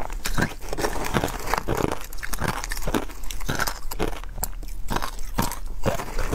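Frozen ice coated in matcha powder crunching, in short sharp crunches a few times a second, as it is chewed and broken up with a metal spoon.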